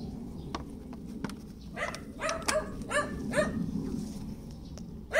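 A dog barking: a quick run of about five short barks a couple of seconds in, then one more at the very end.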